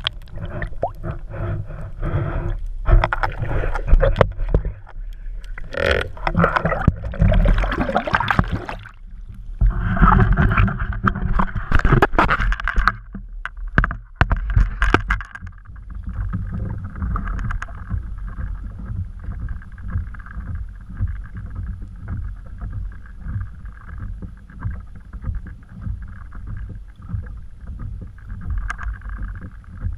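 Water sloshing and knocking around an underwater camera beside a kayak, loud and irregular. After about fifteen seconds it settles into a steady rumble with a hiss.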